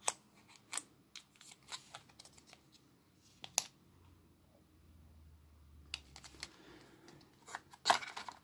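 Light handling noise of a plastic-wrapped USB-C cable and a cardboard box insert: scattered faint crinkles and clicks, one sharper click about three and a half seconds in, and a short burst of rustling near the end as the cable goes into the box.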